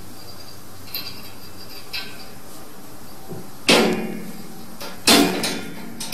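Metal slide-bolt latch and wire door of a cage rattling as a cat paws at it: two light clicks, then two loud clanks with a brief rattle, about a second and a half apart in the second half.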